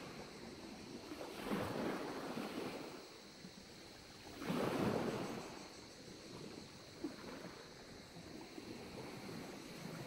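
Small waves washing onto a pebble beach. They swell and fall back, a soft surge about a second and a half in and a louder one about four and a half seconds in.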